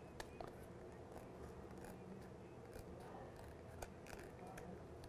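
Scissors snipping through the white border of an integral instant film print, a string of faint, irregular cuts. They are cutting off the sealed edge so the print's layers can be separated.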